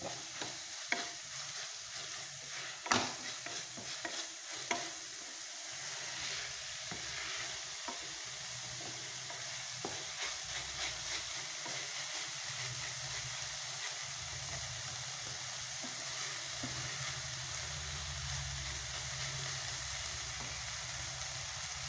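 Spatula stirring and scraping chopped okra, onion and tomato as it sizzles in oil in a stainless steel pan. Sharp knocks of the spatula against the pan come through the first half. After that, only a steady sizzle remains.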